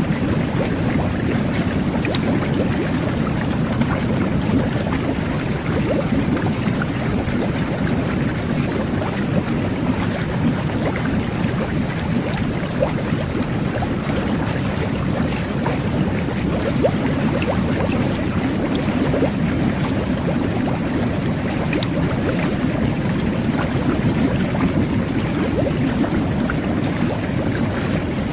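Jet bath (whirlpool tub) jets churning the bathwater: a steady, low bubbling rush of water and air with faint crackles throughout.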